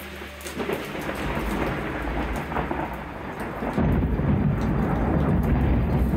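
Rain falling steadily during a thunderstorm, with thunder rumbling; a deep, louder roll of thunder builds about four seconds in and keeps going.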